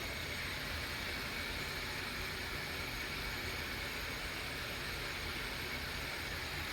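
Several metal fidget spinners spinning freely on their bearings at once, a steady faint whirring hiss with a thin high tone.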